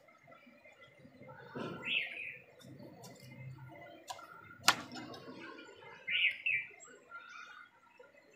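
Two sharp knocks of a knife cutting through chicken on a board, the second one louder, about midway through. Short bird chirps come in about two seconds in and twice more near the end.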